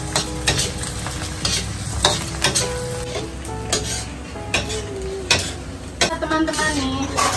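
Krupuk crackers deep-frying in hot oil in a wok: a crackling sizzle as they puff up, with irregular taps of long chopsticks against the wok as they are turned.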